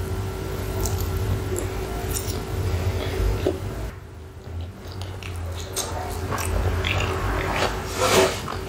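Chewing of a mouthful of cheesy hot chips topped with chilli sauce: a run of soft mouth clicks and smacks, with a louder bout of mouth noise about eight seconds in.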